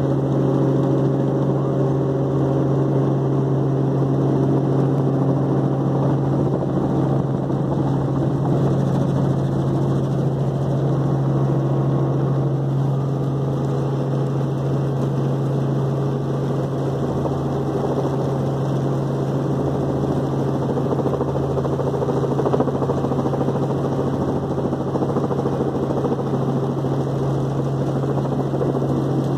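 Helicopter engine and rotor heard from inside the cabin: a steady drone with a strong low hum, unchanging through the approach to land.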